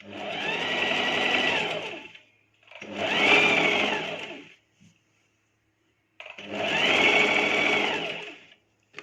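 Sewing machine stitching in three runs with short pauses between them, each run speeding up and then slowing, as it sews thread-filled piping onto the top piece.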